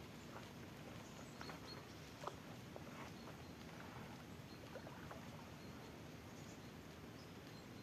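Quiet riverbank ambience: a steady low rumble of wind or water, with scattered faint clicks and a few faint high chirps.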